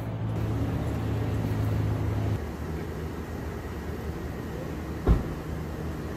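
Outdoor vehicle noise: a steady low engine hum that cuts off abruptly a little over two seconds in, then a duller steady rumble with one sharp thump about five seconds in.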